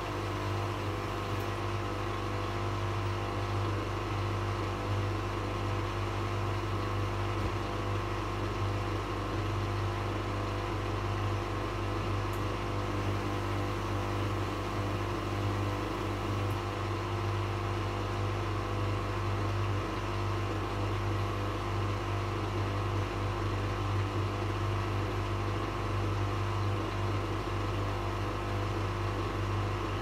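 Bush WMNB712EW washing machine's drain pump running steadily with a deep mains hum, pumping out the rinse water.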